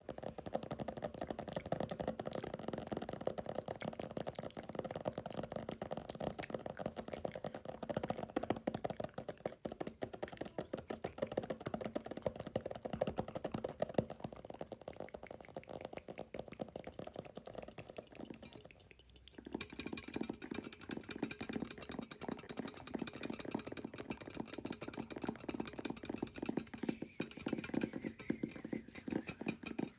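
Very fast fingernail tapping, a dense unbroken patter of clicks, layered with ASMR mouth sounds. The tapping breaks off for a moment about two-thirds of the way through and resumes with a different tone.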